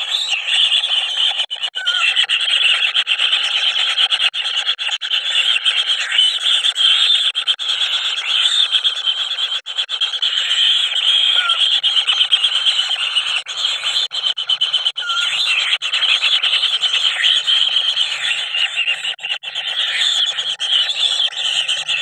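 Kingfisher nestlings begging together: a loud, continuous rasping buzz from several chicks at once, with a few short squeaks on top.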